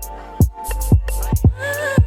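Background music with a beat of deep kick-drum thumps over a sustained bass, with a short sliding melodic line near the end.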